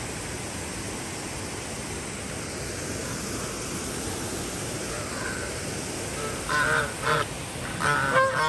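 Domestic geese honking as they crowd in to be fed bread: a faint call about five seconds in, then several loud harsh honks in quick succession near the end, over a steady hiss of running water.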